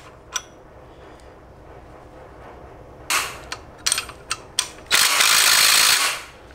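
Hand ratchet on a long extension clicking in short bursts, starting about three seconds in, as it works a double-nutted stud loose, then a quick loud run of fast ratcheting about five seconds in.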